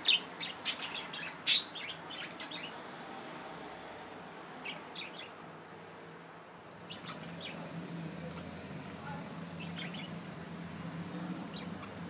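Pet budgerigars chirping: a quick cluster of sharp, short chirps in the first couple of seconds, the loudest about a second and a half in, then a few fainter scattered chirps while the male courtship-feeds the female. A faint low steady hum sits underneath from about seven seconds in.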